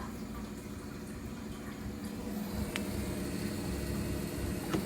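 Steady low electrical hum from a 650 VA UPS running on battery just after its mains plug has been pulled, with one faint tick partway through.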